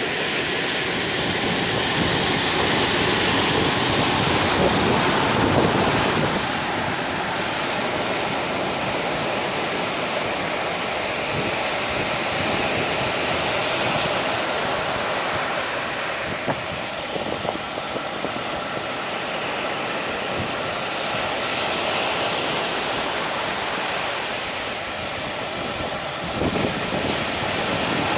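Rough sea surf: waves breaking and washing in as a continuous rushing noise that swells louder around four to six seconds in and eases off again.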